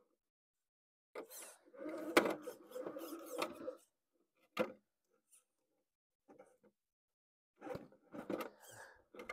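RC rock crawler's electric motor and drivetrain whirring in short bursts as it climbs over rock, with tyres scraping and clicking on the stone and one sharp knock about two seconds in.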